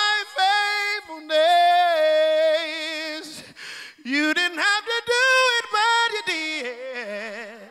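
A man singing a cappella into a handheld microphone in a high gospel voice. He holds long notes with vibrato, then about four seconds in sweeps up into an ornamented run that steps down in pitch toward the end.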